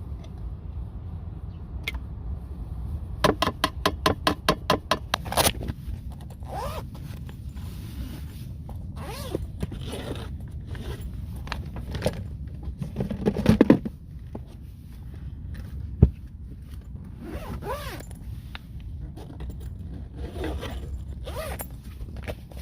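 A zipper pulled open in a fast run of clicks about three seconds in, followed by scattered scrapes, clinks and knocks of camp cooking gear being handled, with one sharp knock later on. A steady low wind rumble runs underneath.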